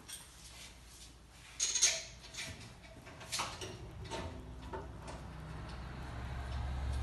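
Metal clanks and knocks from parts of a rain-gutter downpipe forming machine being handled and fitted: a sharp clack about two seconds in, then several lighter knocks. A low hum builds over the last two seconds.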